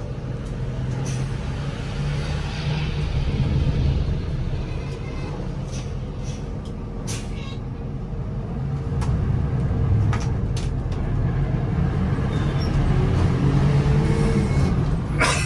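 Diesel engine of a Hino R260 bus running under way, a steady low drone that swells and eases with a few short clicks and rattles.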